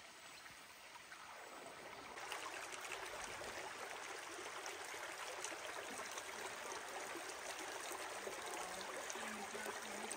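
Steady rush of flowing creek water, an even noise without any rhythm that gets louder about two seconds in.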